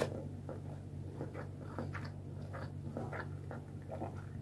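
A person chewing a mouthful of inari sushi (rice in a fried tofu-skin pouch) with the mouth closed: faint, soft wet mouth clicks, over a steady low hum.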